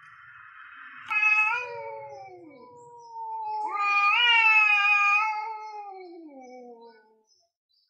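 Two male cats, an orange tabby and a grey cat, yowling at each other in a territorial standoff before a fight. A drawn-out yowl breaks out about a second in, with a second, lower voice overlapping it. A louder yowl rises at about three and a half seconds, and both trail off in long falling wails that die away near the end. A faint rasping noise comes before the first yowl.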